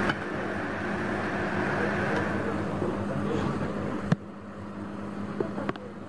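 Computer test bench running with a steady fan whir and hum. About four seconds in there is a sharp click, after which the higher whir drops away and the hum carries on, with a couple of light clicks near the end.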